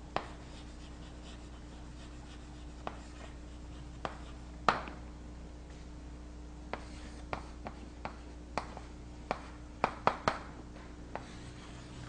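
Writing on a board during a pause in talk: a dozen or so short, sharp taps and scratches at an irregular pace, the loudest a little before five seconds in and a quick cluster near ten seconds, over a steady low electrical hum.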